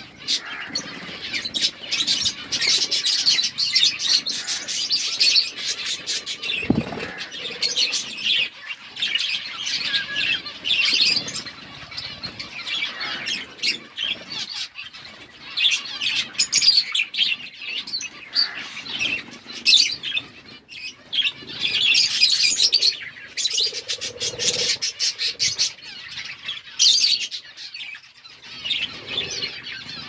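Many budgerigars chirping and chattering in a steady, overlapping stream, with wing flutters here and there.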